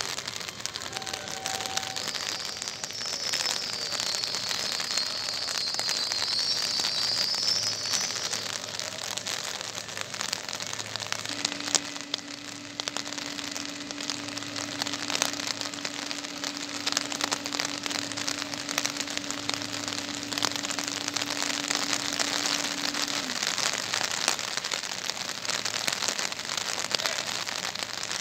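Heavy rain falling steadily, with many scattered drops ticking close by. A high wavering squeal sounds from a couple of seconds in for about six seconds, and a steady low hum holds for about twelve seconds in the middle.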